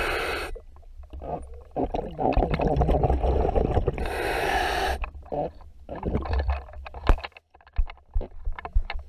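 A scuba diver's breathing recorded underwater: regulator hiss and rushing, bubbling exhaled air for the first five seconds, then a run of small sharp clicks and taps over a low rumble.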